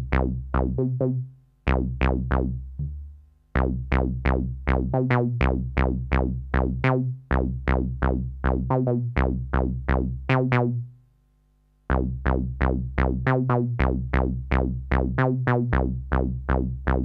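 Bass synth on a Native Instruments Maschine+, played live from its pads in keyboard mode: a motif of short, sharply attacked notes at about four a second. The playing stops briefly three times: about a second in, near three seconds, and around eleven seconds.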